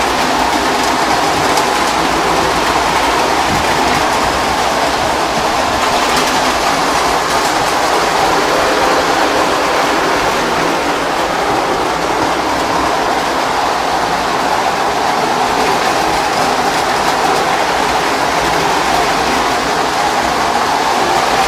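Several postwar Lionel Alco F-A2 toy diesel locomotives running at once: a steady rolling whir of their electric motors and metal wheels on three-rail track, with no breaks or changes.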